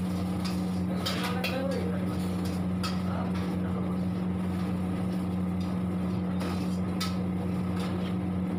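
Metal ladle scraping and clanking against a steel wok as food is stirred and tossed, irregular sharp clinks over a loud, steady low machine hum in a commercial kitchen.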